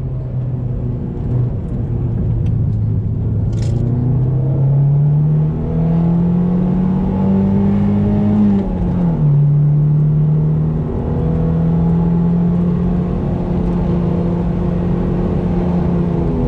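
Toyota MR2's engine heard from inside the cabin while lapping a race track. It pulls hard, its pitch climbing for several seconds, then drops sharply with a gear change about nine seconds in and carries on steadily.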